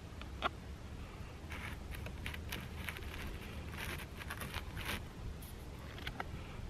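A knife sawing through the crust of a bread roll: a run of short scratchy strokes, about three a second, that stops about five seconds in.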